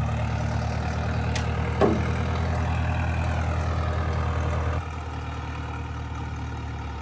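Vehicle engine idling steadily, with one clunk about two seconds in. The engine sound drops suddenly to a lower level just before five seconds in.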